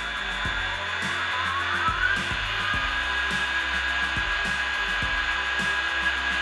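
Model electric locomotive running, with a steady whirring whine that rises in pitch over about a second and then holds steady, over background music.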